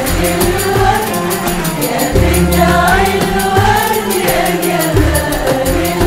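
Arabic orchestral music: a women's choir singing over qanun, oud and violins, with frame drums and jingles keeping a steady beat.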